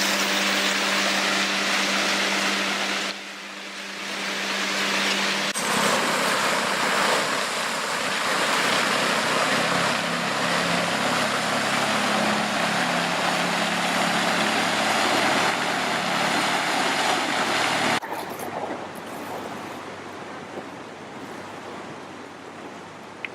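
Steady outdoor rushing noise picked up by the camcorder's microphone, in several clips that cut abruptly from one to the next, some louder, some quieter. A steady hum lies under the first few seconds.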